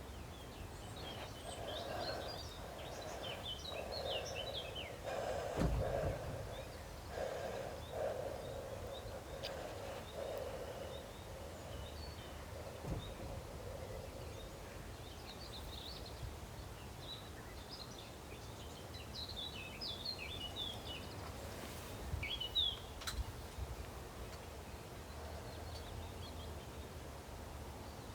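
Quiet outdoor ambience with small birds chirping in scattered bursts over a faint hum that fades out about halfway through; a single thump about six seconds in and a couple of sharp clicks near the end.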